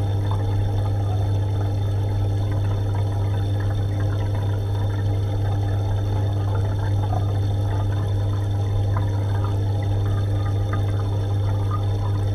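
Aquarium water bubbling and trickling over a steady low hum from the tank's equipment, with small scattered ticks of bubbles and splashes.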